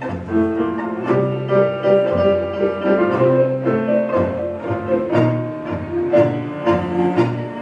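Live tango orquesta típica playing a tango: violins, piano, bandoneons and double bass, with held bass notes under the melody and accented beats.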